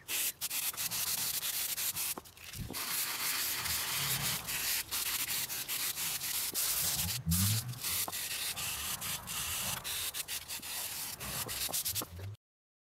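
Wooden spoon rubbed back and forth by hand on a flat abrasive sanding mesh: a steady gritty scratching with brief breaks between strokes. It cuts off suddenly near the end.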